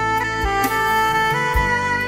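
Background music: a saxophone melody over a steady bass beat.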